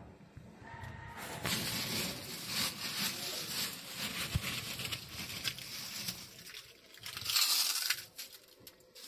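Plastic bags rustling and crinkling as they are handled, irregular with crackles and a louder rustle near the end.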